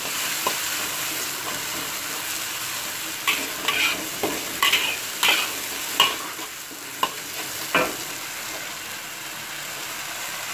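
Chili sambal paste sizzling in oil in a wok as it is fried down until cooked, stirred with a metal spatula. The spatula scrapes and clacks against the wok several times in the middle.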